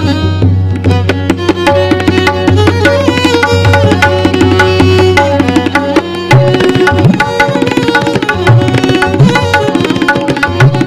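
Instrumental interlude of an Afghan Pashto song: violin playing the melody over rapid tabla strokes. A steady low drone underneath drops out about six seconds in.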